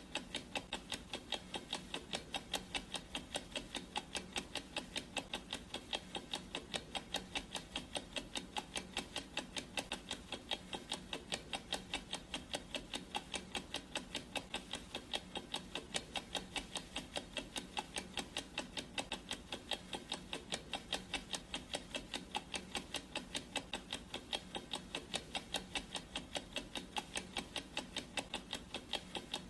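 Clock ticking at a steady, even pace: the ticking sound effect of a countdown timer while it runs.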